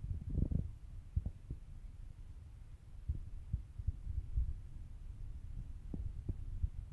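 Irregular low thuds and rumble, with a few sharper knocks.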